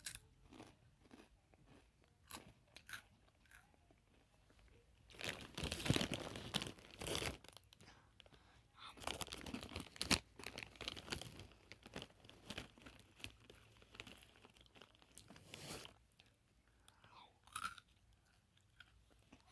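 Irregular crunching and chewing close to the microphone, heaviest in two busy stretches in the middle.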